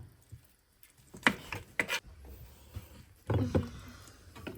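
Knife cutting up a raw whole chicken: a few sharp knocks, about a second in and again near the end, with rubbing and scraping between them.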